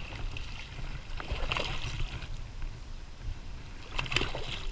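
Hooked shad splashing at the water's surface in a few short bursts, the strongest near the end, over a steady low rumble.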